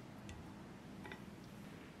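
Faint, scattered light ticks of a spatula against a glass bowl while melted chocolate is stirred, over a low room hum.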